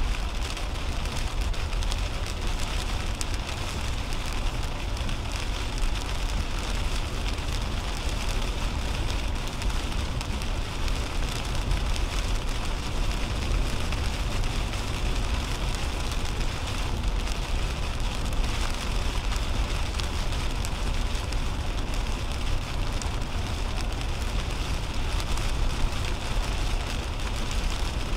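Heavy rain hitting a moving 2010 Toyota Camry's windshield and roof, over a steady low rumble of tyres running through water on a wet highway, heard from inside the cabin.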